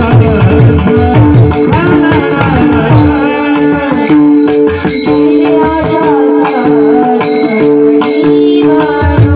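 Devotional kirtan music: a woman singing a melodious line over two steady held drone notes, with drum strokes and sharp hand-cymbal clicks keeping the beat.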